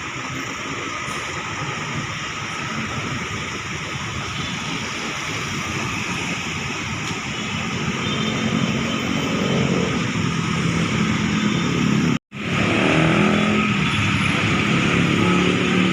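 Traffic noise with a large diesel bus engine running. The engine grows louder and lower in the second half, as a bus comes close. The sound cuts out briefly about twelve seconds in.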